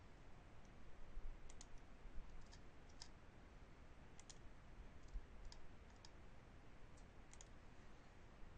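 Faint computer mouse clicks at irregular intervals, some in quick pairs, over a low background hiss.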